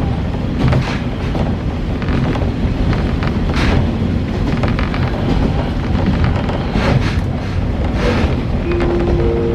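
Diesel railcar running, heard from inside the cabin: a steady loud low rumble with a few short knocks. Near the end, three steady tones start one after another, each higher than the last.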